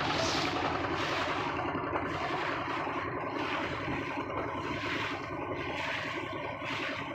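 A wooden boat's engine running steadily while the hull cuts through choppy water, with spray rushing and splashing along the side.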